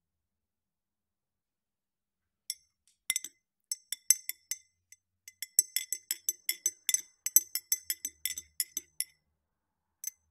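Metal spoon stirring in a ridged glass of tea, clinking against the glass: one clink, then a quick run of about three or four ringing clinks a second for some six seconds, and a last single clink near the end.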